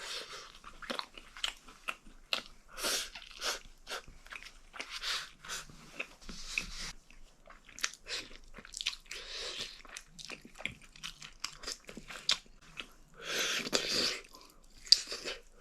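A person eating close to the microphone: irregular crunchy bites and chewing of fried braised chicken pieces, with a denser, louder stretch of chewing about thirteen seconds in.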